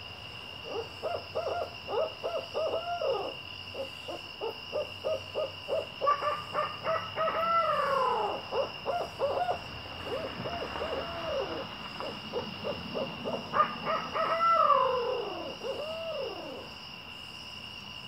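Owls hooting in two long bouts, about one to nine seconds in and again from about ten to sixteen seconds. Each bout is a quick run of rhythmic hoots that ends in drawn-out, falling wails, with a lower and a higher voice overlapping.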